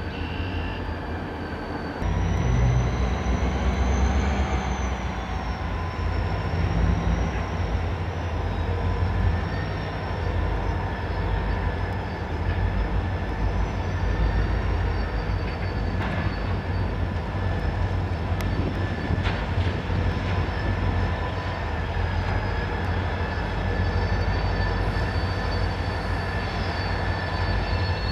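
Reading & Northern diesel locomotives moving slowly through yard track: a steady engine rumble with sustained high-pitched wheel squeal from the curves and switches. The sound grows louder about two seconds in.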